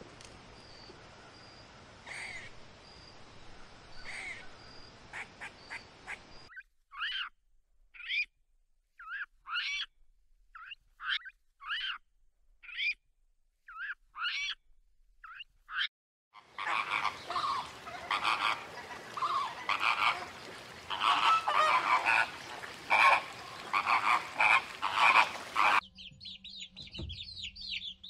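A string of animal sounds. It opens with a faint hiss and a few clicks. From about six seconds in come a dozen short separate calls, then a dense, loud run of overlapping calls. Near the end there is the rapid high peeping of chicks.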